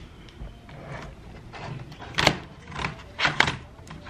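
Laptop keyboard and palmrest handled while the keyboard is set in place and its ribbon cable fed into the connector: a string of light plastic clicks and knocks, the loudest about two seconds in and a close pair a little after three seconds.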